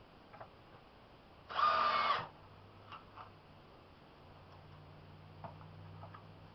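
Power drill driving a sheetrock screw into a wooden board: one short burst of the motor, under a second long, about a second and a half in, with a few light handling clicks around it.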